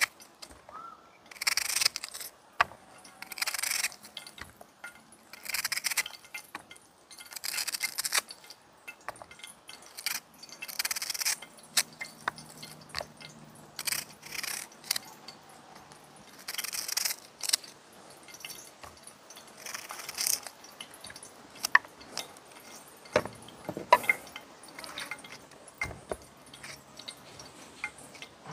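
A knife cutting up seasoning vegetables such as tomato and sweet pepper: repeated short scraping strokes, one every second or two. In the last several seconds come sharp clicks and clinks.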